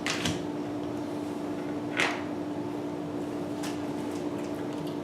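Kitchen handling sounds: a few light clicks at the start and one brief louder clatter about two seconds in, like a cupboard or utensil being knocked, over a steady low appliance hum.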